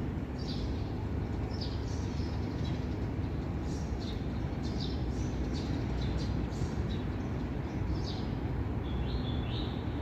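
Strong wind buffeting the microphone as a steady low rumble, with birds chirping over it in many short calls.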